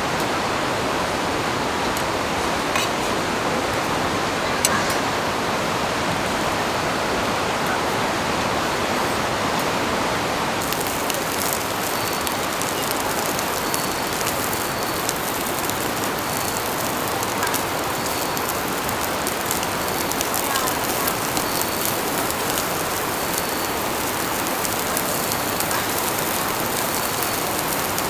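Steady rushing water noise throughout. About ten seconds in, a crackling sizzle joins it as slices of meat go onto the hot grill beside the green onions.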